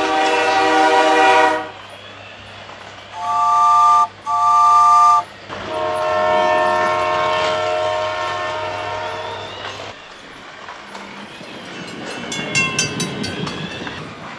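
Battery-powered toy train playing electronic whistle and horn effects: a long multi-tone whistle, two short toots about three seconds in, then a longer whistle that fades away. Near the end comes a quick run of clicks and rattles.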